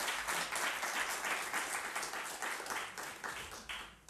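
Audience applauding, the clapping thinning out and stopping just before the end.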